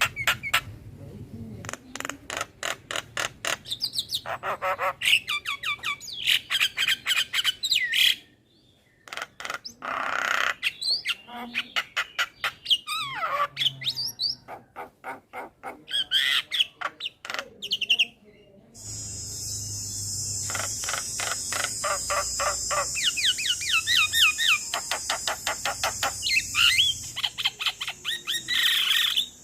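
Male Javan myna calling: rapid chattering runs of clicks mixed with whistled notes, broken by two short pauses. A steady high hiss sits under the calls in the last third.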